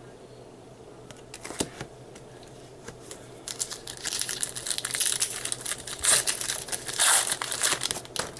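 Foil wrapper of a baseball card pack being torn open and crumpled. A few light rustles come first, then steady crinkling from about three seconds in, with the loudest crackles near the end.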